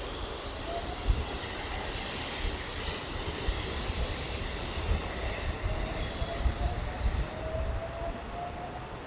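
Train running through a station, with steady rail noise and low rumble. A faint whine rises slowly in pitch in the second half.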